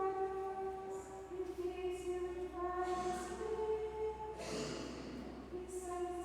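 Women's voices singing a slow, chant-like melody of long held notes that step between pitches: the sung responsorial psalm of the Mass. There is a breath between phrases about four and a half seconds in.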